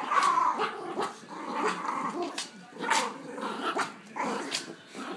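Yorkshire terrier growling steadily while tugging at a toy in play, broken by several short sharp barks.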